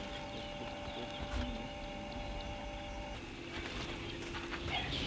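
Faint bird calls in the bush, with low, steady cooing notes in the second half.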